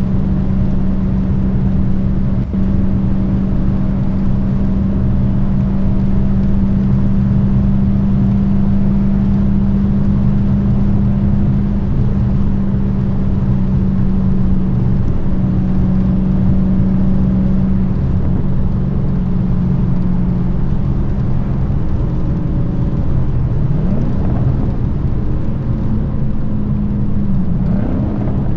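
Exhaust of a Dodge Challenger SRT Hellcat's supercharged 6.2-litre Hemi V8, with its active exhaust valves deleted, droning at steady cruising revs. In the last few seconds the revs climb briefly twice.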